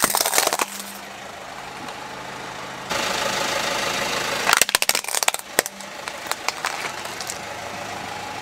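Hard plastic toys cracking and snapping as a car tyre rolls over them: sharp cracks right at the start, then a dense run of cracking and snapping about four and a half to five and a half seconds in as a plastic toy monster truck breaks apart, with a few smaller clicks after. A car engine idles steadily underneath.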